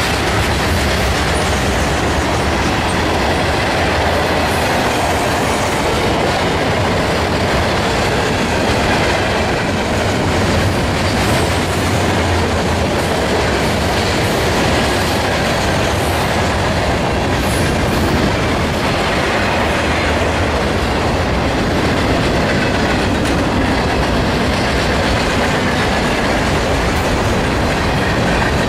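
Freight train cars (covered hoppers, tank cars and boxcars) rolling past at close range: a steady rumble and clatter of steel wheels on the rails, with a few faint clicks.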